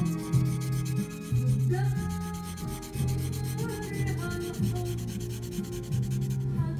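A pencil rubbing rapidly back and forth on paper, shading a drawing, with a steady scratchy texture. Music plays underneath.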